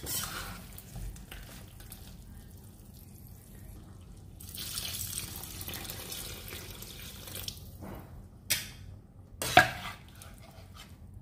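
Water poured in a steady stream from a glass into a metal kadai of fried chicken and masala. Near the end come two sharp clinks of a spatula against the pan as it is stirred.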